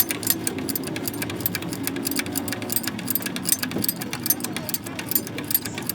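Rapid, irregular metallic clicking and clinking, several clicks a second, over a steady low hum.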